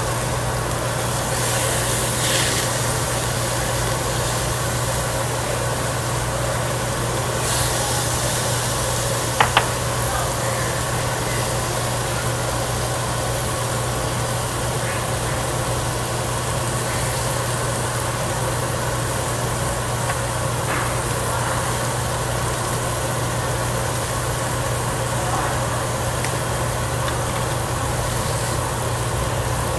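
Steady hum of a tabletop barbecue grill's overhead exhaust fan running, with two brief hisses about two and about seven and a half seconds in, and a couple of sharp clicks near ten seconds.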